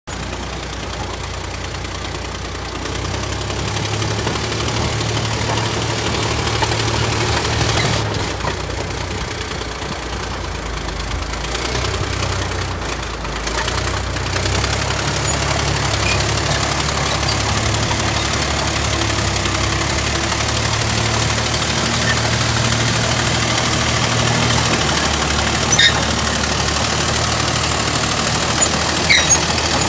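Crawler bulldozer's diesel engine running, its level and pitch shifting several times as the throttle changes. A few short sharp clicks come near the end.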